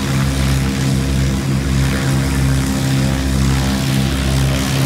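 Single-engine light aircraft's piston engine and propeller running at low taxiing power, a steady, even drone.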